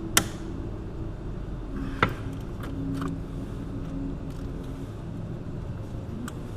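Hand tools clinking against metal as the hub bolts are worked on: two sharp clinks about two seconds apart and a few fainter taps later, over a steady low background hum.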